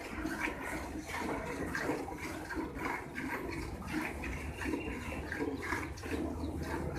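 Streams of milk squirting into a steel bucket as a cow is milked by hand, in a steady rhythm of about two squirts a second.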